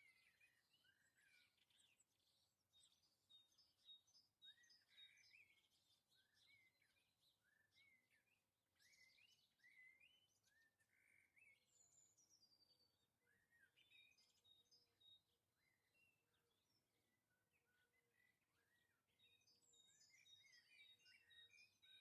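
Faint chirping and twittering of small garden songbirds: many short calls with a few quick high trills, busier near the end.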